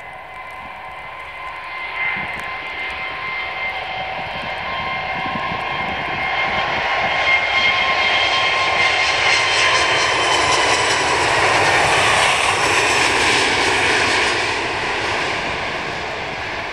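Airbus A380's four Rolls-Royce Trent 900 turbofans at takeoff power, a jet noise with steady whining tones. It grows louder as the aircraft accelerates down the runway and lifts off, is loudest about twelve seconds in, then eases as it climbs away.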